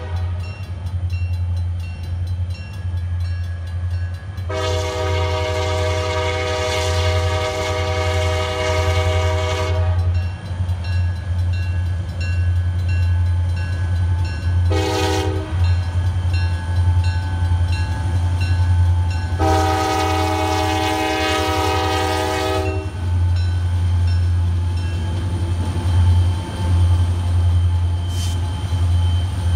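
Wheeling & Lake Erie diesel locomotive's air horn sounding the grade-crossing signal: a long blast ending just after the start, then a long blast, a short one and a final long one. The locomotive's diesel engine rumbles steadily underneath.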